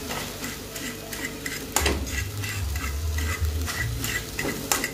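Scrambled eggs sizzling in a metal frying pan while a spoon stirs and scrapes them round, with two sharper knocks of the spoon on the pan, about two seconds in and near the end.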